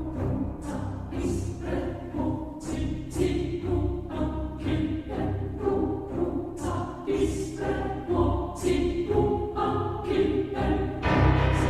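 Background music in an orchestral style, with choir voices singing sustained notes over a repeating pulse.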